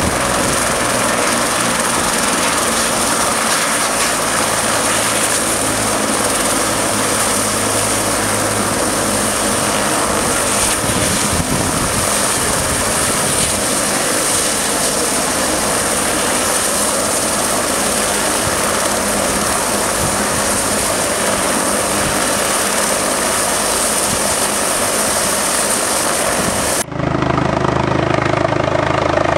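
Medical helicopter running on the ground with its rotors turning: steady rotor and turbine noise with a high whine. Near the end the sound cuts abruptly to a different recording with the high end gone and a deeper engine rumble.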